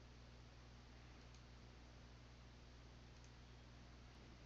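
Near silence: a steady low electrical hum and faint hiss, with a few very faint clicks.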